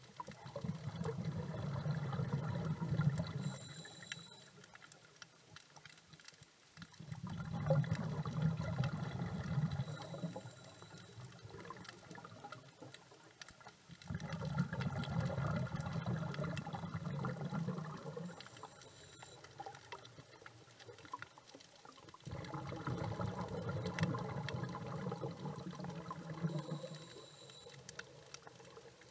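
A scuba diver breathing through a regulator underwater. Four long bubbling rushes of exhaled air, each lasting three to four seconds, about every seven to eight seconds, and after each a brief, high-pitched hissing inhale.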